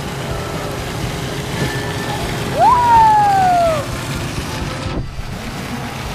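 Bumper boat's motor running steadily with water churning around the hull. About two and a half seconds in, one loud high cry jumps up in pitch and slides slowly down over about a second.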